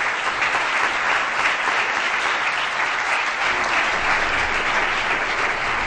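Audience applauding steadily: dense clapping from a full room.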